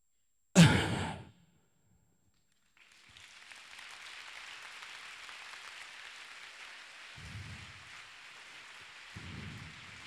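A loud, breathy burst into a microphone that fades within a second, then, after a short silence, a steady rain-like hiss with soft low thumps about every two seconds.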